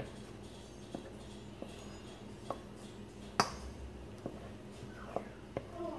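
Spatula tapping and clicking against a stainless steel mixing bowl while scraping banana-bread batter into a metal loaf pan: about eight scattered sharp clicks, the loudest about three and a half seconds in.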